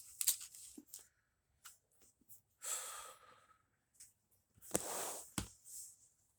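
A man breathing out audibly twice into a close microphone, about three seconds in and again near five seconds in, with a few short clicks between.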